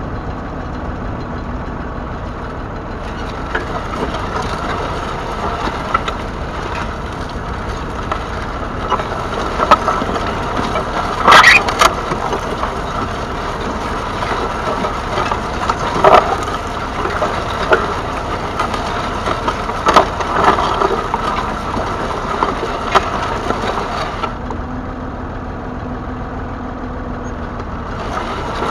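Massey Ferguson 135's 2.5-litre three-cylinder diesel engine running steadily while ploughing. Several sharp cracks and knocks come through the middle.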